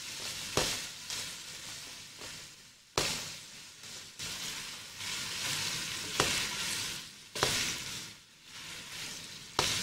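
Chicken and chopped vegetables sizzling as they are sautéed in a wok, stirred with a spatula that knocks against the pan about five times.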